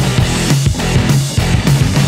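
Loud rock backing music with a driving, even rhythm.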